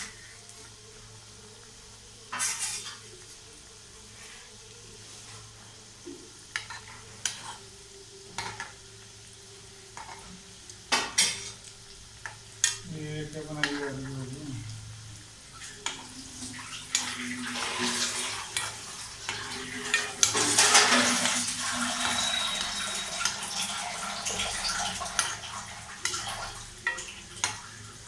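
Gulab jamun frying in oil in a metal kadai, with a low sizzle, and a steel spoon turning them, making scattered clinks and scrapes against the pan. The stirring and sizzling grow louder in the second half.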